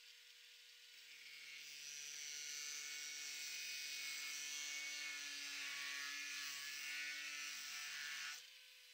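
Angle grinder with a cut-off disc cutting into a copper rod. The motor's steady whine turns, about a second in, into a loud grinding hiss as the disc bites the metal. The hiss cuts off sharply near the end as the disc leaves the rod, and the free-running whine returns.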